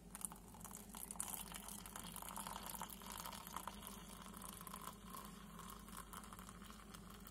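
Hot milk poured in a thin stream into a glass mug of whipped instant coffee: a faint, steady pouring and splashing.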